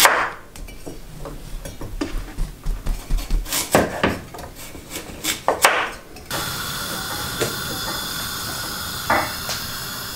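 Chef's knife chopping carrots on a wooden cutting board: irregular knocks of the blade through the carrot onto the board. About six seconds in this gives way to a steady hiss from a pot of carrots and celery on a high gas flame, with one knock near the end.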